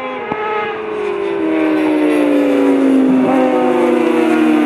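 A pack of 600cc superstock racing motorcycles at high revs, several overlapping engine notes gliding slowly down in pitch as they grow louder and closer.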